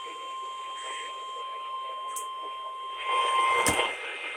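A steady single-pitch electronic alert tone over faint radio audio. Near the end a louder burst of noise with a sharp click comes in, and the tone stops.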